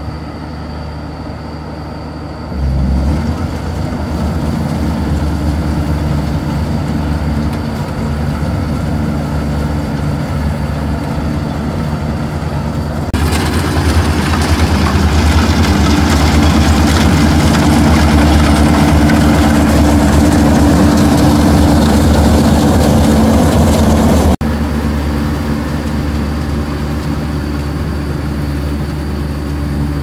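Rice harvesting machine's engine running steadily under load. It grows louder a few seconds in, and a dense rushing mechanical noise joins it about halfway through. That noise drops away suddenly near the end, leaving the steady engine hum.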